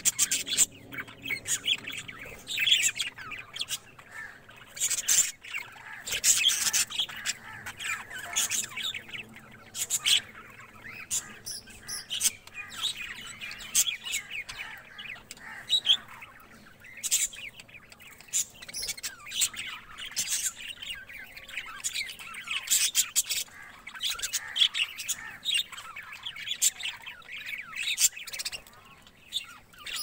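A colony of budgerigars chattering, many birds calling at once in a continuous stream of short, sharp chirps and squawks.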